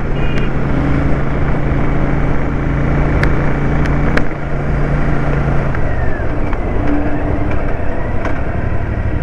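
Motorcycle on the move, with a steady engine hum under loud road and wind noise; the engine hum drops away about six seconds in.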